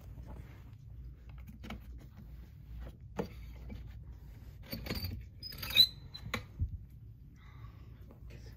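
The metal wire door of a plastic pet carrier clicking and rattling as its latch is worked and the door is swung open: a handful of scattered quiet clicks, with one sharp metallic clank, the loudest sound, about six seconds in.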